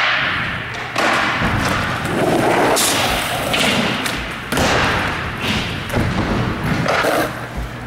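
Skateboard rolling over skatepark ramps, with several sudden thuds and slaps from the board popping and landing, about one a second.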